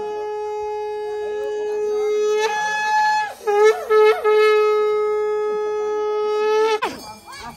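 A small hand-held brass ritual horn blown in one long, loud, held note. About halfway through the pitch wobbles and breaks a few times, then it holds again and ends with a downward slide.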